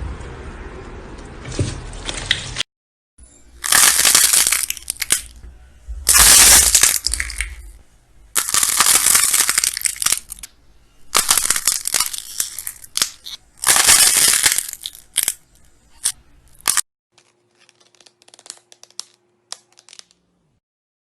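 Slime being squeezed and pressed by hand, crackling and crunching in a run of loud bursts, each a second or two long, with clicks between them. Near the end it gives way to a much quieter stretch of faint clicks.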